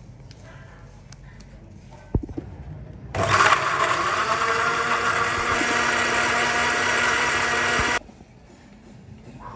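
Electric kitchen blender running for about five seconds, starting abruptly about three seconds in and cutting off suddenly. A short knock comes just before it starts.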